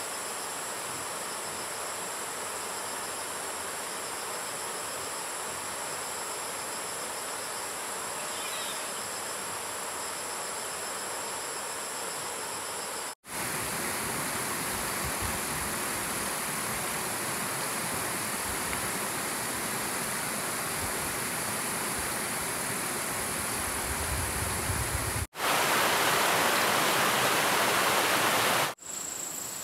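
Outdoor ambience: insects droning steadily in thin high tones over a rushing noise. It cuts out abruptly about 13 and 25 seconds in, and the rushing is louder for the last few seconds.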